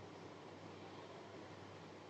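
Near silence: a faint, steady hiss with a low hum underneath, room tone with no distinct event.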